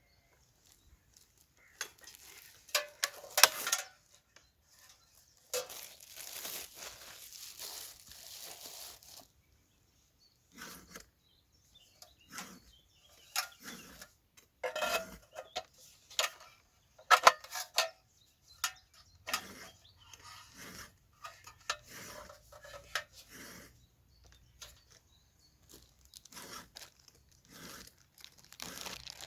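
Close handling sounds: scattered metal clinks and knocks with stretches of rustling, crinkling and tearing, as when fire-lighting materials and a small camp stove and pot are handled.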